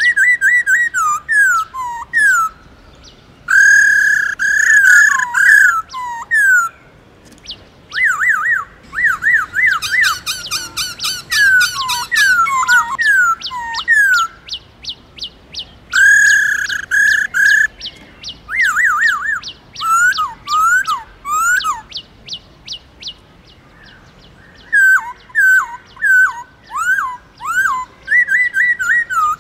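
Black-throated laughingthrush singing loud phrases of clear whistled notes, many sliding downward. A fast run of repeated notes comes around the middle, and short pauses fall between phrases.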